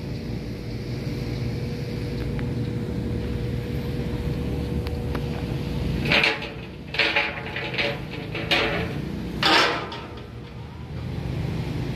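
A steady low engine hum from a running machine or nearby traffic. Four or five loud shouted calls from workers come in the middle.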